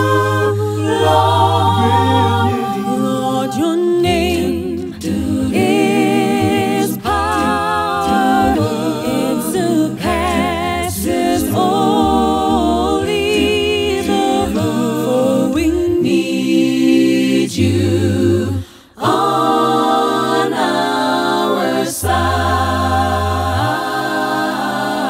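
A five-voice a cappella group singing a gospel worship song in close harmony, held notes with vibrato over a low bass line, with no instruments. The singing breaks off briefly about nineteen seconds in, then carries on.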